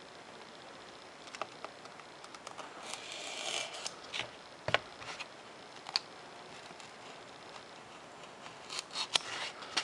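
Thin hobby-knife blade drawn along a plastic ruler, slicing through a 3 mm Depron foam sheet. A scratchy drag comes about three seconds in, with scattered sharp clicks and taps.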